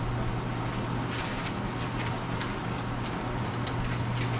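Thin Bible pages being leafed and rustled by hand in several soft strokes, over a steady low hum.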